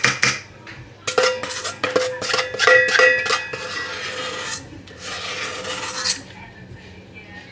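Cake batter being scraped out of a stainless steel stand-mixer bowl: a run of rasping scrapes from about a second in until about six seconds, with the metal bowl ringing under the strokes.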